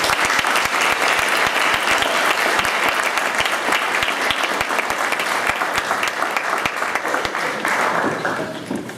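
Audience applauding: steady, dense hand clapping that dies away near the end.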